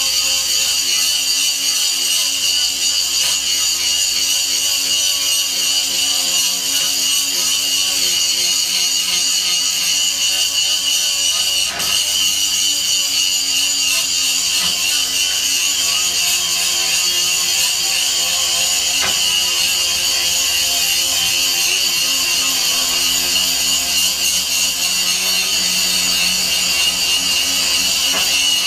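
Angle grinder running steadily against a rusted quarter-inch steel plate, grinding off the rust: a continuous high-pitched whine that wavers slightly.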